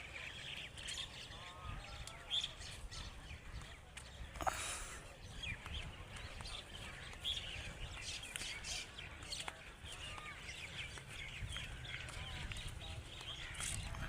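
Myna birds calling: a busy mix of short chirps and whistles, with a sharp click about four and a half seconds in and a low rumble underneath.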